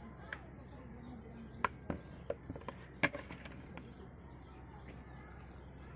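Pot of mullet and tomato soup heating on a stove, with scattered short pops and clicks from the bubbling liquid, the sharpest about one and a half and three seconds in, over a steady high-pitched background drone.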